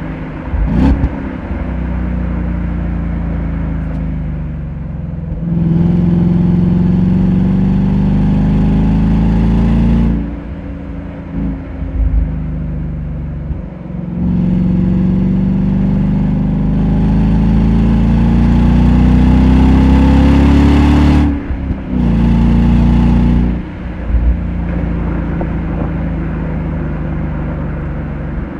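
Ford Mustang GT V8 engine pulling hard twice, its note rising each time and dropping off sharply as the throttle closes. A short burst of revs follows, then the engine runs steadily at lower revs.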